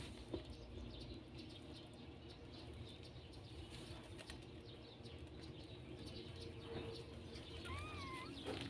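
Faint, soft clicking of newborn kittens suckling at their mother, with one short wavering squeak about a second before the end.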